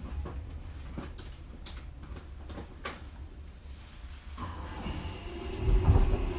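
JR Kyushu 305 series electric train standing with a low hum and a few scattered clicks and creaks. About four and a half seconds in, the steady whine of the traction inverter starts up as the train begins to pull away, and a loud low rumble comes in near the end.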